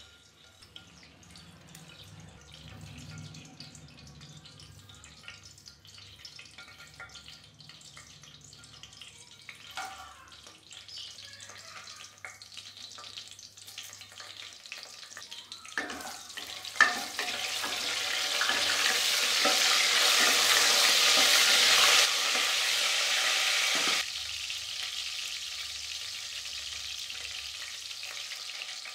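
Whole spices frying in hot oil in a pressure cooker, with a crackling sizzle. It is faint at first with a few clicks, grows loud about two-thirds of the way in, then drops off sharply twice and goes on more quietly.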